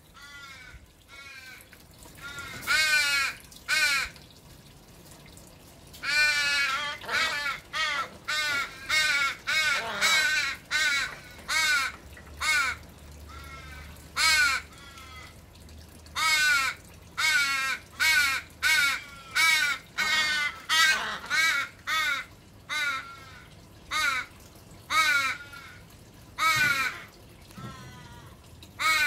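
Australian ravens calling: a long run of harsh, drawn-out caws, one after another about once a second, each sliding down in pitch, broken by a couple of short pauses.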